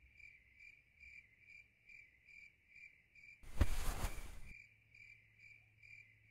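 Crickets chirping in a steady rhythm, a little over two chirps a second. A brief rushing noise sounds about three and a half seconds in.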